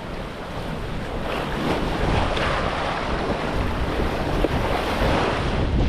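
Big ocean waves rushing and breaking around a sailboat at sea, with steady wind buffeting the microphone. A louder wash of water swells about two seconds in.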